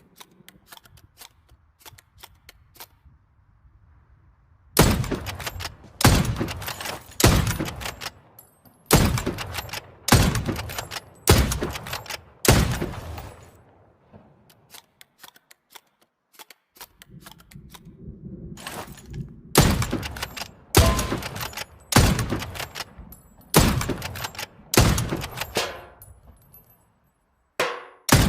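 Hunting rifle shots fired one after another, about one every 1.2 seconds, each followed by a short echoing tail: seven shots, a pause of about six seconds, then seven more. Faint light clicks come before the first shot.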